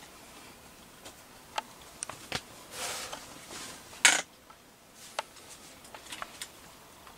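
Quiet camera handling inside a fabric hunting blind: scattered small clicks and soft rustles, with a short louder rustle about four seconds in.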